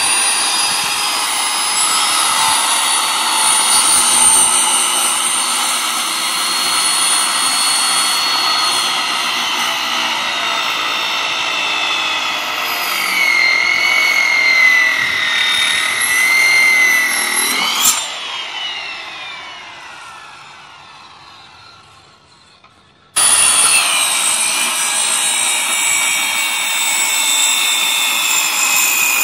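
Corded circular saw cutting through wooden pallet slats, its motor running with a steady high whine under load. Partway through, the saw is released and the blade winds down with a falling pitch, then it is suddenly running at full speed again.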